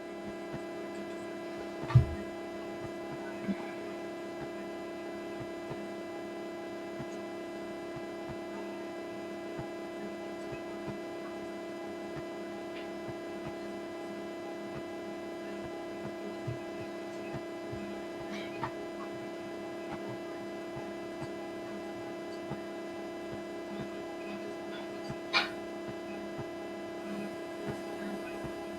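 Steady electrical hum, with a knock about two seconds in and a few faint clicks.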